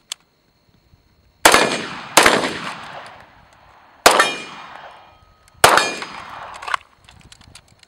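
Four gunshots, two close together early on, then two more spaced out near the middle and later. Each is followed by about a second of metallic ringing from a struck steel target.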